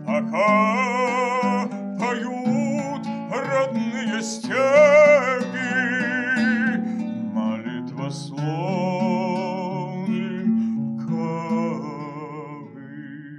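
A man singing a slow song in long, held notes with a wavering pitch, accompanying himself on a plucked lute.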